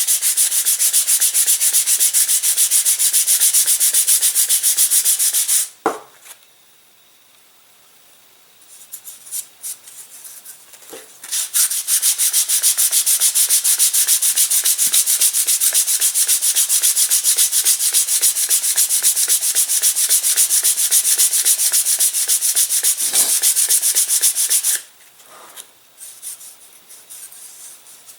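Sandpaper rubbing rapidly back and forth over balsa wood, shaping a glider wing's trailing edge down to the ribs. The rasping stops for a few seconds about six seconds in, resumes, then stops again near the end, leaving faint handling knocks in the gaps.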